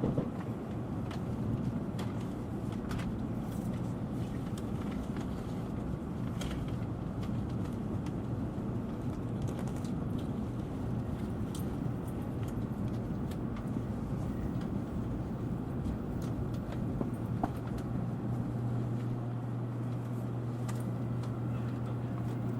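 Tokaido Shinkansen Nozomi bullet train running at speed, heard inside the passenger car as a steady rumble with faint scattered clicks. A low steady hum joins near the end.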